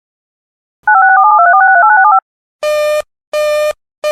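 A rapid string of DTMF touch-tones, two tones at a time stepping through quick digits, lasting about a second and a half and starting about a second in. Then come repeated buzzy beeps, about 0.4 s each with short gaps between, like a busy signal.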